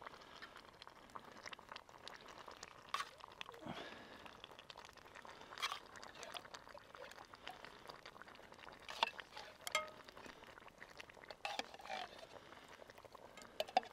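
Tinned tomatoes being poured from a can into a steel cooking pot: faint wet sliding and plopping, with scattered small clicks and knocks.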